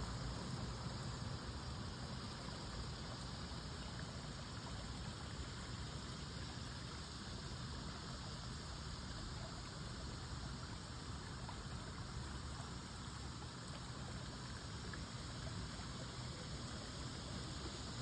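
Steady outdoor background noise: an even hiss over a low rumble, unchanging throughout.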